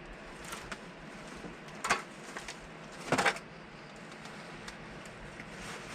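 A mouthful of soft-baked bar being spat out into a paper napkin: two short, rough bursts of noise, about two seconds and three seconds in.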